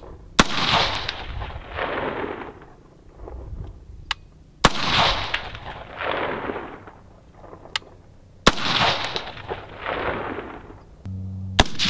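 Faxon ARAK-21 gas-piston rifle with a .300 Blackout barrel fired in single shots about every three to four seconds: four sharp cracks, each followed by a long rolling echo. A steady low hum comes in near the end, just before the last shot.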